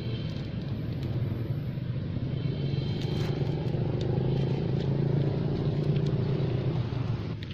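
Steady low rumble of an engine running close by, falling away sharply near the end.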